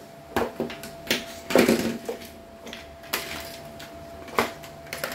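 Handling clatter of cordless impact drivers: a handful of separate hard knocks and rattles as the tools are picked up and set down on a surface, under a faint steady hum.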